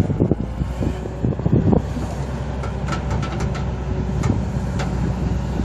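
A heavy machine's engine running steadily, with scattered knocks and clanks.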